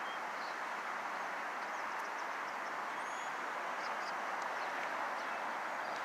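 Steady rushing outdoor background noise at an even level, with a few faint, short, high bird chirps scattered through it.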